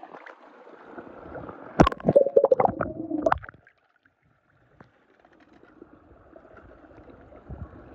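Shallow pool water sloshing and gurgling, with a sharp splash about two seconds in and a second of busy splashing after it. The sound then drops out for about a second before a faint wash of water returns.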